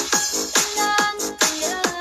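Background electronic dance music with a steady, fast beat and a short falling tone on each beat.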